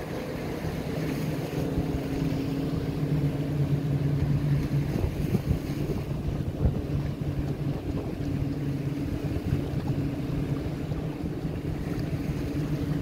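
Motorboat engines droning steadily as a line of boats passes offshore, over wind buffeting the microphone.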